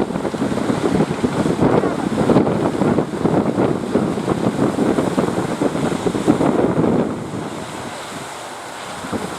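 Wind buffeting the microphone over the rush of surf. It eases noticeably about seven seconds in.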